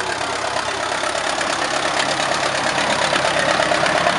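Narrow-gauge diesel locomotive engines running, as a C50 locomotive and its open carriages pass close by on the adjacent track. The steady engine sound has a fine rhythmic beat and grows a little louder toward the end.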